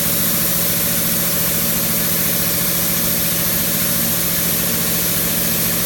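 CNC plasma cutting machine at work: a steady mechanical hum under a continuous even hiss.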